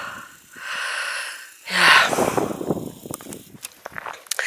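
A person breathing hard in and out while walking, about one breath a second, with a short voiced exhale about two seconds in, then a few light clicks near the end.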